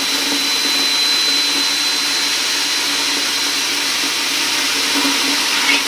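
Chauvet Funfetti confetti machine's blower motor running at full speed as it blows confetti out: a steady high whine over a rush of air.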